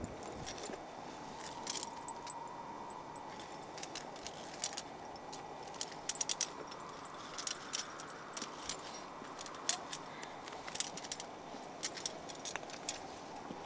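Metal climbing gear (carabiners and protection on a rack) clinking and jingling in irregular short bursts, over a faint, slowly wavering tone.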